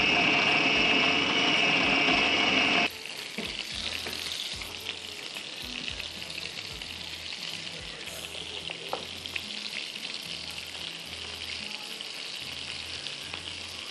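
An electric food chopper runs steadily, grinding the beef mince kabab mixture, then cuts off suddenly about three seconds in. After that, beef kababs sizzle as they shallow-fry in oil in a pan.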